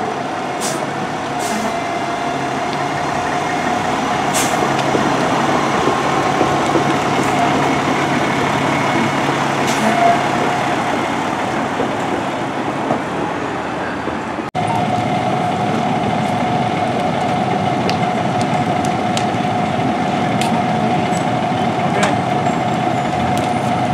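Fire engine's diesel engine and pump running steadily, a constant drone with a steady whine over it and a brief break about halfway through. A few sharp clicks are heard in the first half.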